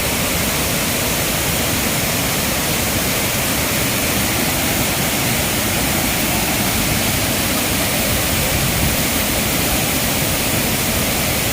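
Waterfall: water pouring down in a loud, steady rush.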